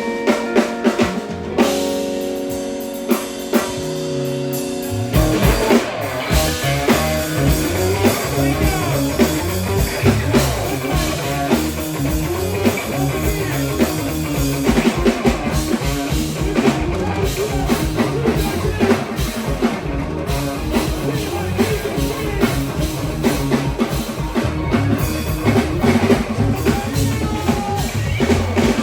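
Background rock music: guitar chords for the first few seconds, then drums come in about five seconds in with a steady beat.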